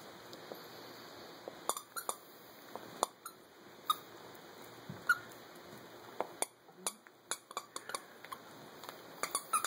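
Two dachshund puppies playing tug-of-war over a plush toy: short, irregular squeaks mixed with small clicks and knocks as they tug and chew.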